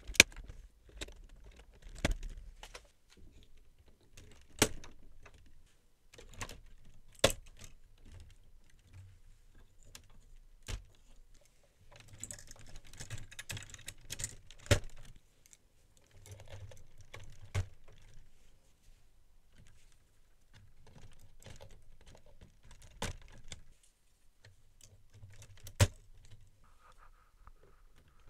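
LEGO plastic pieces clicking and clattering as leaf and branch elements are snapped onto a model, with a handful of louder snaps among lighter rattling of the plastic leaves.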